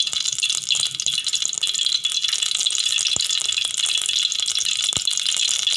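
Cooking oil crackling and hissing as it heats in a hot aluminium pot: a steady high hiss full of fine crackles, with two sharper ticks in the second half.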